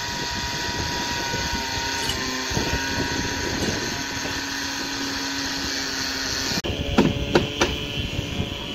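Steady drone of construction-site machinery with a faint steady hum. It cuts off suddenly about two-thirds of the way through and gives way to sharp metallic knocks, three in under a second, of tools striking steel formwork.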